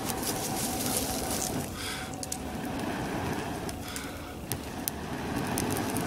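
A man blows long, hard breaths into a smouldering pine-straw tinder bundle to coax a charcloth ember into flame. It comes as about three rushing blows with short breaths in between at roughly two and four seconds. A few crackles come in the later part as the bundle catches.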